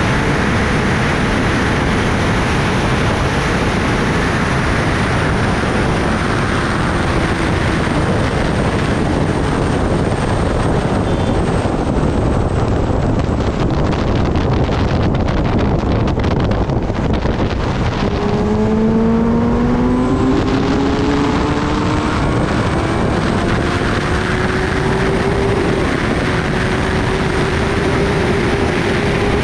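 Kawasaki Ninja ZX-10R's inline-four engine under steady, heavy wind rush at highway speed, heard from the rider's seat. A bit past the middle the engine note climbs in pitch as the bike accelerates.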